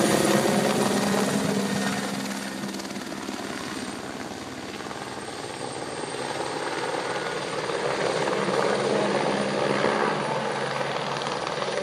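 Police helicopter flying low overhead with its rotor and turbine running. It is loudest at first and fades as it moves off, then grows louder again from about six seconds in as it circles back.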